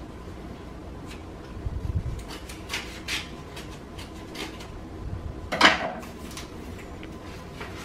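Scissors cutting and handling paper as mail is opened: a run of short, crisp snips and rustles, with one sharp clack about five and a half seconds in as the scissors are set down on the wooden table.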